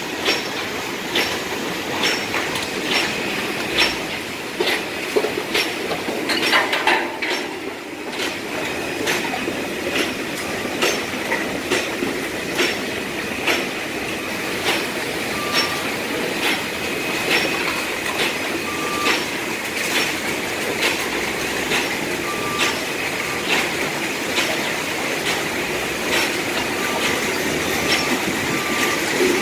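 Loud machinery running, with a regular clanking knock about one and a half times a second and a steady high whine. A few short beeps come in the second half.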